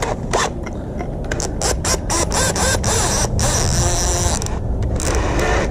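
Keyless chuck of a DeWalt cordless drill ratcheting as it is opened and closed to swap an auger bit for a 1/2-inch step bit: a quick run of clicks.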